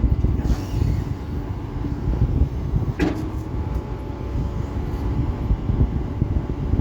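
Excavator's diesel engine running with a steady low rumble, and one sharp metallic clank about halfway through.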